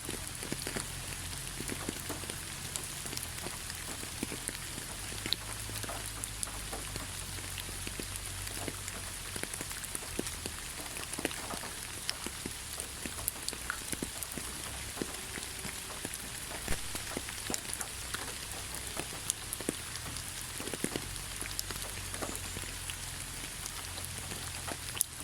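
Steady rain falling, a continuous hiss with many individual drops ticking through it.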